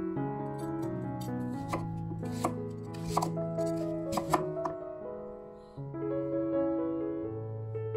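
Kitchen knife chopping a raw peeled sweet potato on a wooden cutting board: about ten sharp knocks in the first five seconds, then only background music.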